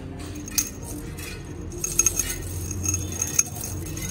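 Light metallic jingling and clinking: a thin high ringing with a few sharp clinks, the loudest a cluster about two seconds in.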